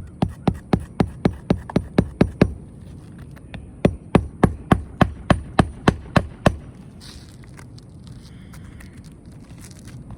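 Hammer driving roofing nails into an asphalt shingle: two quick runs of about ten blows each, roughly four a second, with a pause of a second or so between them.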